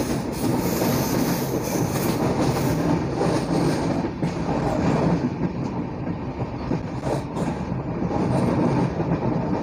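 Passenger train running along the track, heard from an open carriage doorway: a steady rumble of wheels on rail with a few clicks over rail joints.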